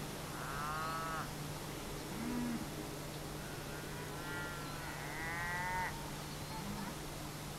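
Cattle calling: cows and calves mooing and bawling in separate calls, several high and drawn out, with a short low moo about two seconds in. A steady low hum runs underneath.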